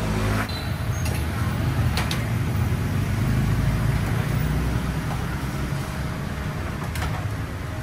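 Steady low rumble of road traffic, with a sharp click about two seconds in and another near the end.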